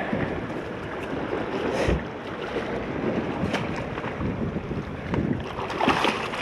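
Wind buffeting the microphone over water sloshing around a small boat, with a few sharp knocks.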